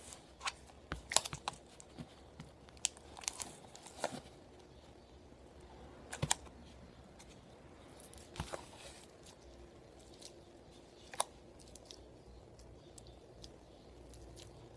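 Hands working model-making materials and tools: irregular small clicks and taps with brief crinkling, the sharpest clicks about a second in and near six and eleven seconds.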